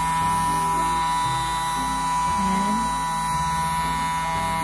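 Battery-powered ear wax vacuum cleaner's small suction motor running with a steady, high-pitched whine.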